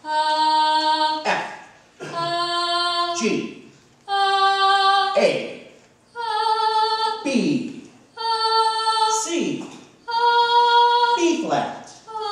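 A woman's voice singing single held notes up a scale, one every two seconds, each a step higher than the last. This is the ascending C melodic minor scale, sung note by note as it is called out.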